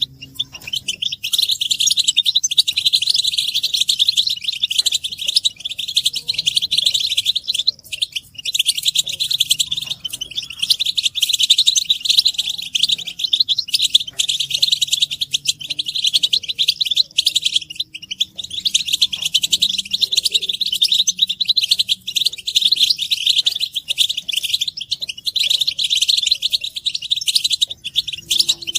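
European goldfinches twittering and singing: a dense, nearly unbroken stream of rapid high chirps and trills with a few brief pauses. It is a recording of group goldfinch chatter used to stir a male goldfinch into song.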